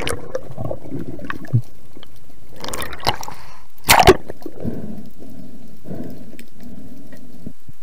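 Underwater water noise picked up by a diver's camera: gurgling and bubbling, with a loud sharp knock about four seconds in.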